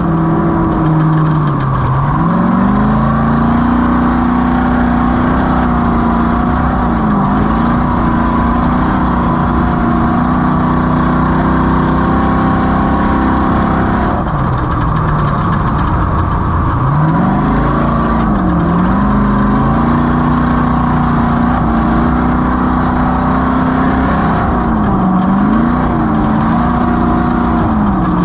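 Off-road race vehicle's engine running hard, its pitch holding high with throttle and dipping briefly several times. About halfway through it falls away for a couple of seconds before climbing back up.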